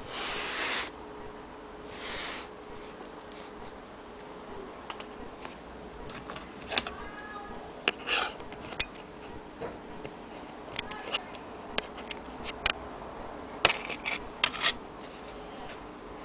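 Handling noises: two brief brushing rubs near the start, then scattered light clicks and taps, with a few faint squeaks.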